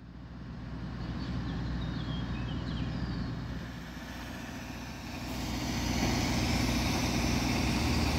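Low rumble of a passing vehicle, growing louder about five seconds in, with birds chirping over it in the first few seconds.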